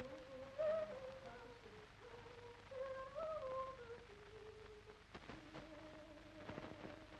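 A voice humming or softly singing a slow tune, faint, with long held notes that glide and step between pitches; a new note comes in about five seconds in.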